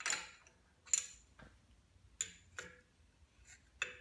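Half-inch box-end wrench clinking on the bolts of a belt reduction drive's upper pulley as they are tightened: about five sharp metallic clicks, some with a brief ring, spread over the few seconds.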